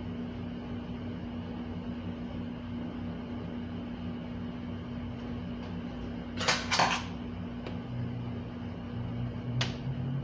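Steady low hum with kitchen handling sounds over it: a brief clatter about two-thirds of the way through, then a sharp click near the end as the plastic flip-top cap of a honey bottle is snapped open.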